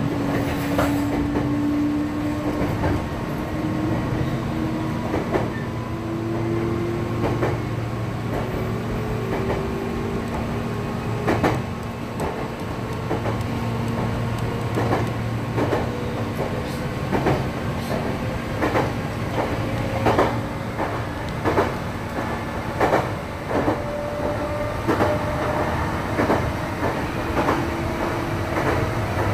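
Meitetsu electric local train running, heard from the driver's cab: a motor whine rising slowly in pitch as the train gathers speed, over a steady rumble. The wheels click over rail joints, the clicks coming faster in the second half.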